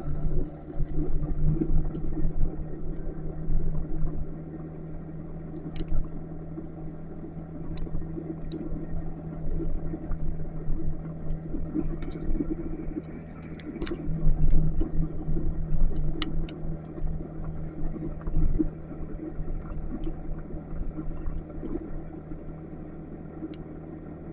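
Motorcycle engine running steadily with a low rumble, its level rising and falling. A few sharp ticks scattered through.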